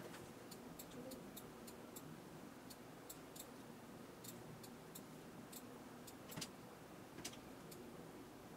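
Faint, irregular light clicks of a computer mouse in use, coming unevenly, sometimes several in a second. Two slightly louder clicks come near the end, over a faint room hum.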